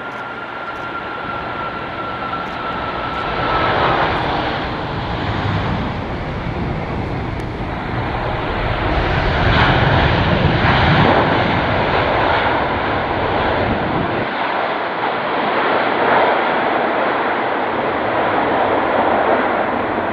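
Boeing 747-400 freighter's four jet engines during landing: a steady high whine over rushing engine noise as it comes over the runway, then a broad roar that swells about four seconds in and is loudest around ten seconds in as the jet rolls out on the runway.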